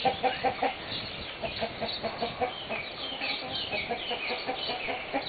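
A pen of North Holland Blue hens clucking, a continuous chatter of many short repeated calls.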